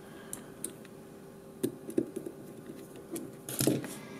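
Scattered light clicks and taps as an AKG C1000S microphone's metal body and internal assembly are handled and slid back together, with a brief scraping rustle near the end.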